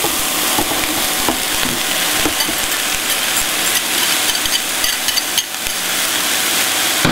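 Raw minced beef sizzling steadily as it goes into hot oil and softened vegetables in a pot, with light clicks as a wire whisk stirs it.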